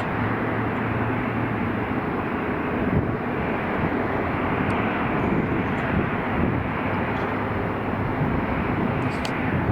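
Steady jet roar from an Airbus A380's four Engine Alliance GP7200 turbofans.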